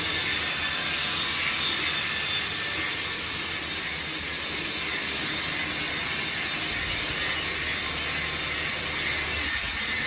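Workshop machinery running steadily: an even mechanical noise with a faint, steady high whine, easing slightly about four seconds in.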